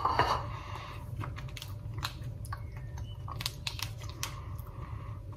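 Person chewing a mouthful of steamed potato: a run of small, irregular mouth clicks.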